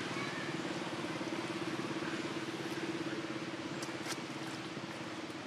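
A steady motor drone: a constant low hum with a hiss over it. Two brief high ticks come about four seconds in.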